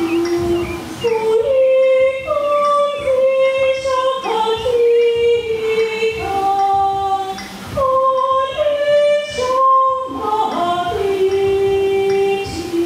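A woman singing a slow solo melody, holding each note for about half a second to a second.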